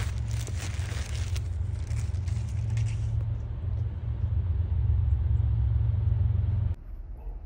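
Wind rumbling on the microphone, with a frosted plastic zip pouch crinkling in the first second or so as the bag is handled. The rumble cuts off suddenly near the end.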